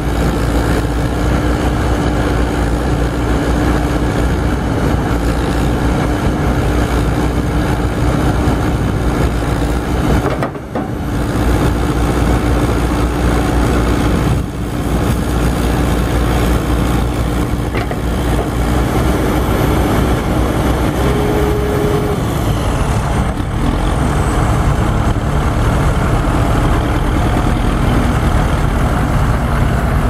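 1995 JCB 214S backhoe loader's diesel engine running steadily with a constant hum while the backhoe arm is worked. The sound dips briefly twice about a third of the way in.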